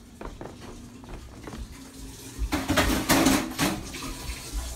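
Footsteps and light handling knocks, then a loud burst of clattering, rushing noise lasting about a second, halfway through.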